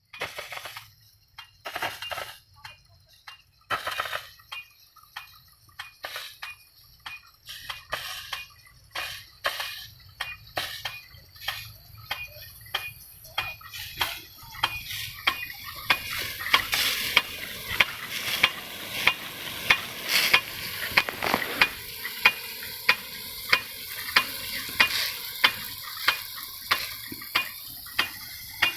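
Rain gun sprinkler running: sharp clacks repeat, about one and a half a second later on, over the hiss of the water jet, which grows louder about halfway through.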